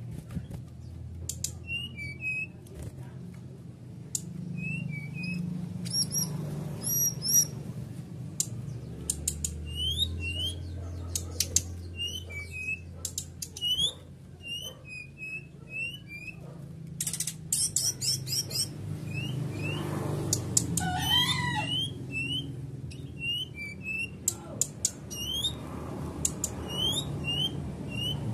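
Brown-chested jungle flycatcher (SRDC) in a cage, giving short sharp chirps every second or so, some rising and some falling, with a longer run of falling notes about twenty seconds in. The bird is in strong breeding drive ("over birahi"). A steady low hum runs underneath.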